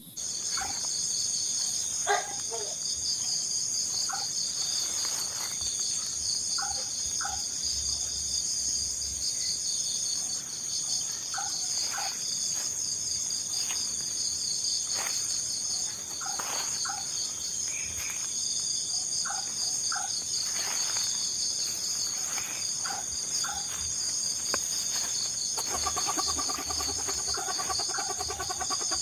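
Night insect chorus: a steady, pulsing high shrill of crickets runs throughout. Short double calls from another animal repeat every couple of seconds. A lower call starts near the end.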